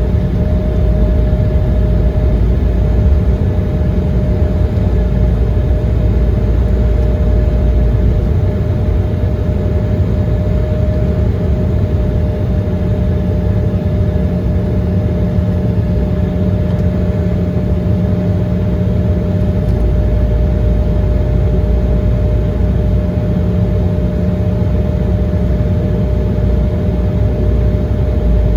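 Steady low rumble inside the cabin of an Embraer 170 airliner with its two turbofan engines running, a steady hum heard over the rumble.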